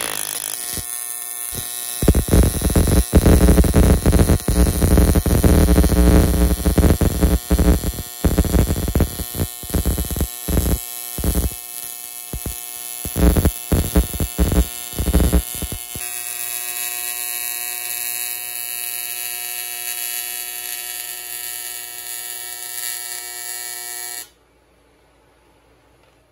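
AC TIG welding arc on aluminum tubing, a steady electrical buzz. From about two to sixteen seconds in it turns into a loud, irregular crackle, and it cuts off suddenly near the end when the arc is stopped.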